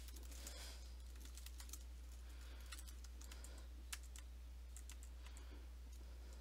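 Computer keyboard keys clicking faintly and irregularly as a command is typed, over a steady low hum.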